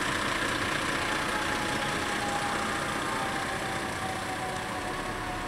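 Fire truck engine idling steadily, with a thin tone slowly falling in pitch through the second half.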